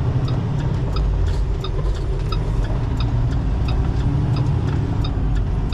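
Semi-truck diesel engine and road noise heard inside the cab while driving, a steady low rumble, with a faint regular ticking about twice a second.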